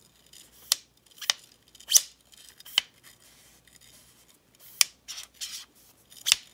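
Handling noise from a Kowa TSN-554 spotting scope turned in the hands, with its slide-out sunshade pulled out: about six sharp clicks spread over several seconds, with light rubbing between.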